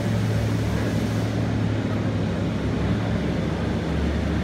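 Olympia ice resurfacer running along the boards while laying its flood water, a steady low machine hum that drops a little in pitch about three and a half seconds in.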